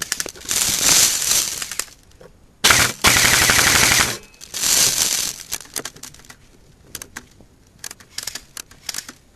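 Airsoft guns firing rapid automatic bursts: three bursts, the loudest about three seconds in and lasting over a second, followed by scattered single shots.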